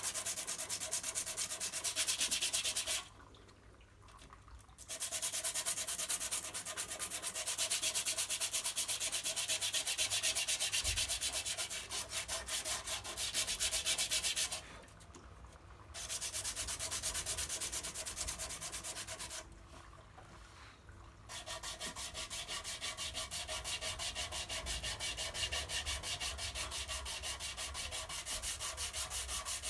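Sandpaper dry-sanding hardened body filler with fast, even rubbing strokes, stopping briefly three times.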